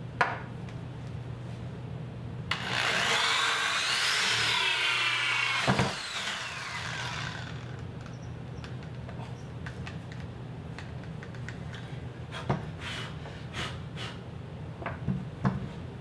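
Corded electric drill working through a hole in a wooden door for about three seconds, its whine rising and then sinking, ending in a knock. Light clicks and taps of handling follow.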